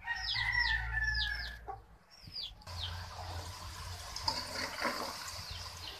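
Chickens clucking and peeping in short falling chirps, several of them over the first few seconds. About three seconds in, a steady sizzle of kara sev dough frying in hot groundnut oil sets in.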